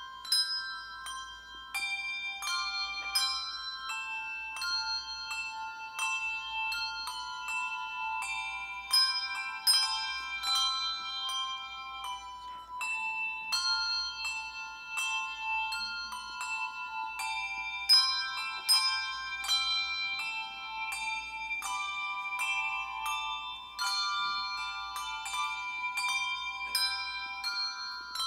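Tuned bells playing a melody: a steady stream of struck notes, often several at once, each ringing on after it is struck, all high-pitched with no low notes.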